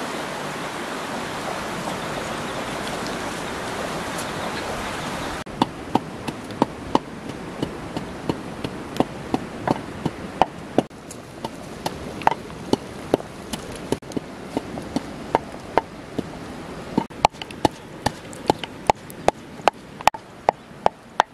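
Wooden pestle pounding spices in a mortar: sharp, separate knocks, one to two a second, coming faster near the end. For the first five seconds only a steady rushing noise is heard.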